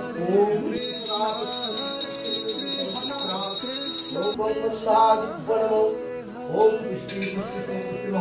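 Music with a gliding melodic line, and a hand bell ringing rapidly and steadily for about three and a half seconds starting about a second in, as rung during a puja.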